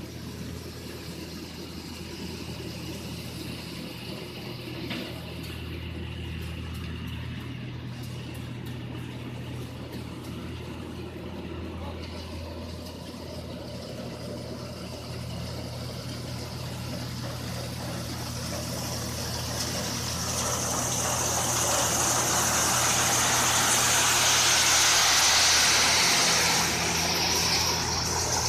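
Rice combine harvester's engine running steadily. From about twenty seconds in it grows louder, joined by a high whine and hiss that peak a few seconds later.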